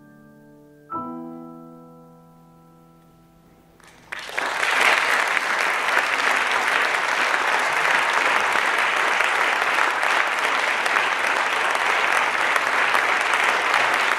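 Solo piano music ending on a final chord about a second in that rings and fades away, then an audience bursts into steady applause about four seconds in, the loudest sound.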